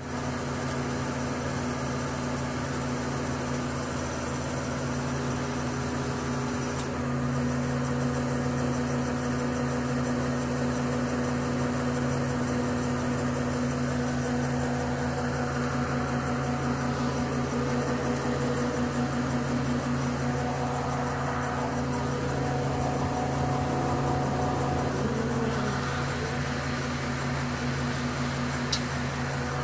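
Mobile crane's engine running steadily, heard from inside the operator's cab as an even hum.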